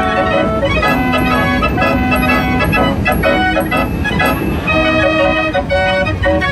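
Chiappa fairground organ playing a tune, its pipes sounding several notes at once that change every fraction of a second, over a steady low background noise.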